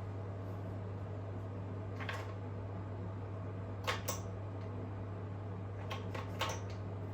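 A few light knocks and clicks of kitchen things being handled, over a steady low hum.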